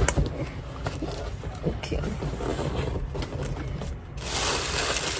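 Hard plastic humidifier parts being handled, with small knocks, clicks and scrapes, then a steadier rustling hiss from about four seconds in.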